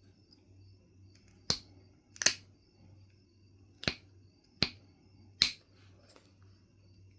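Five sharp clicks, irregularly spaced, of flakes snapping off a Knife River flint piece as it is knapped.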